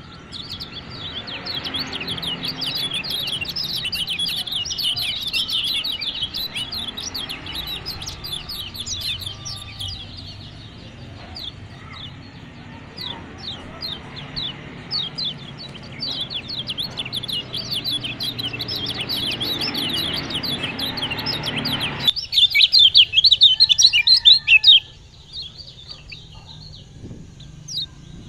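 Lemon-bellied white-eye (kecial kuning) twittering: dense runs of very fast, short, high chirps. About 22 seconds in, the low background noise stops abruptly and a louder burst of chirping follows for about three seconds, then the song goes faint.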